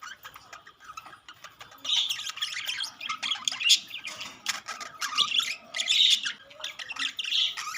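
Several budgerigars chattering and squawking in quick, busy bursts, with short sharp chirps and clicks throughout, most intense from about two seconds in.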